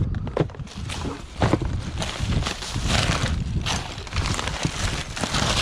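Wind buffeting the microphone with a steady low rumble, over rustling and a few sharp knocks from handling scrap items.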